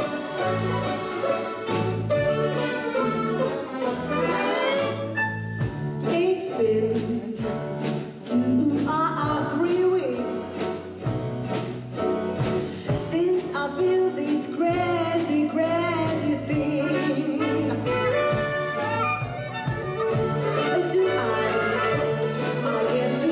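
Live performance of a swing-style song: a woman sings into a microphone over an orchestra of mandolins, violins and accordion, with a bass line stepping steadily note by note underneath.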